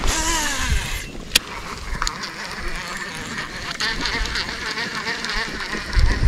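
Baitcasting reel being cranked to retrieve a lure, its gears giving a steady whirring buzz.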